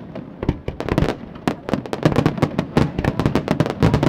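Aerial fireworks going off in a fast, dense barrage: many sharp bangs and crackling reports in quick, irregular succession, often overlapping.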